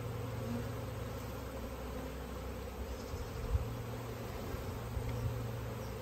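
A swarm of honey bees buzzing in a steady, dense hum, with two brief low thumps around the middle and near the end.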